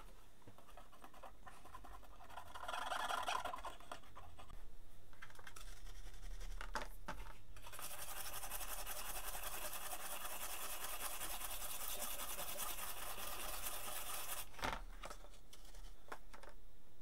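Bristles of a small cut-down paintbrush scrubbing the underside of a multimeter's circuit board to clean it with isopropyl alcohol: a steady scratchy brushing, strongest in the second half and easing off about fifteen seconds in.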